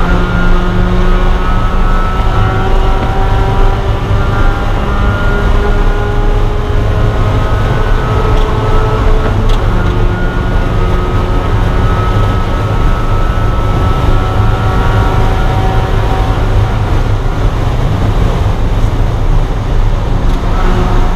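Spec Miata race car's four-cylinder engine heard from inside the cockpit, running under power with its pitch slowly climbing, over a steady rumble of road and wind noise. A brief click about nine and a half seconds in.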